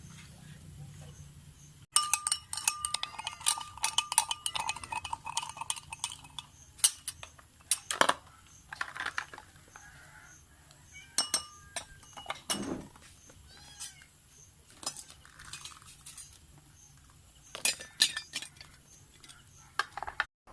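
Kitchenware clinking and knocking in irregular bursts, starting about two seconds in: sharp taps of metal or glass, a few with a short ring. A cat meows faintly now and then.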